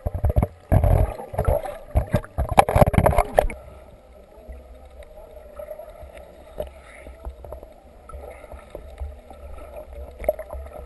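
Pool water sloshing and splashing around a submerged camera, loud with sharp clicks and knocks for the first three and a half seconds. Then the muffled, steady underwater hum of the pool with a low rumble.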